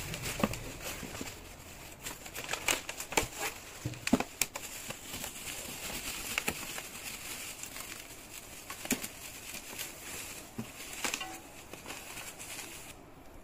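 Bubble wrap crinkling and rustling as hands unwrap and handle a new alloy motorcycle wheel, with many irregular sharp crackles. The rustling dies down just before the end.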